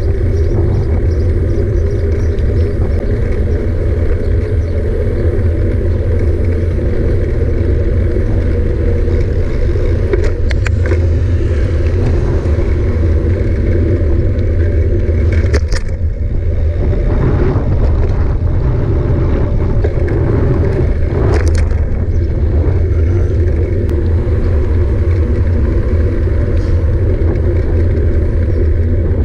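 Steady low rumble of wind and trail vibration on a camera carried on a moving mountain bike, with a few sharp knocks or rattles about ten, sixteen and twenty-one seconds in.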